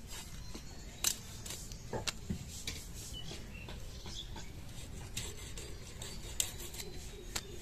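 Scrapes and scattered sharp clicks of fish being cut against a bonti, an upright iron blade fixed to a wooden board.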